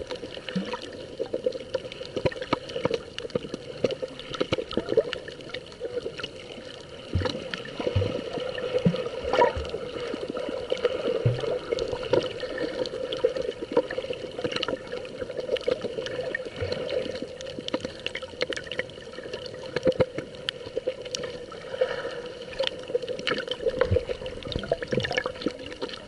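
Underwater sound through a submerged camera: a steady, muffled wash of sea water with many small clicks and crackles scattered throughout.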